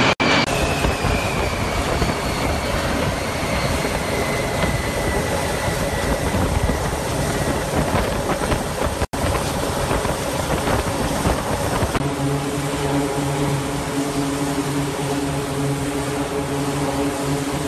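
Jet engine noise of a B-52H bomber and fighter jets passing overhead in formation: a steady rushing roar with a whine that slowly falls in pitch over the first eight seconds. After a cut about nine seconds in the roar goes on, and from about twelve seconds a steady low hum with several pitched tones joins it.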